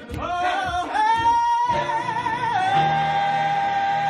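Music with a solo singing voice: it glides up into a long held note about a second in, then drops to a lower note held with a wavering vibrato, over a low steady accompaniment.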